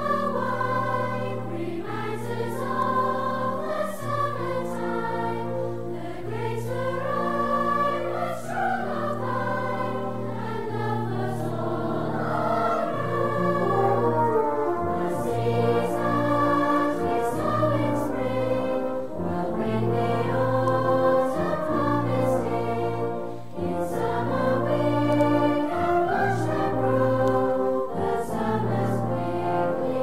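Background music: a choir singing held notes over orchestral accompaniment with brass.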